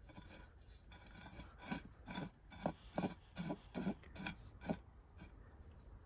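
Small unglazed clay pot scraping on a tray as it is turned by hand, a quick run of about nine short rasping scrapes in the middle.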